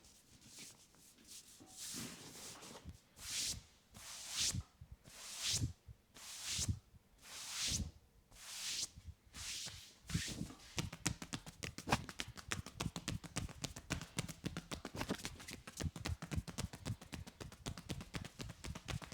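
Hands massaging a head: slow rubbing strokes through the hair about once a second, then, about ten seconds in, a fast run of crackling taps on the head and hair.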